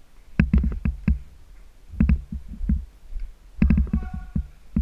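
Sharp clicks and knocks in three quick clusters about a second and a half apart, each cluster a handful of hits.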